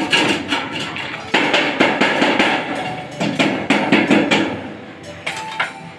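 Hammer striking thin pre-painted sheet-metal gutter, a quick run of light metallic taps folding down and flattening a corner tab. The strikes thin out after about four and a half seconds.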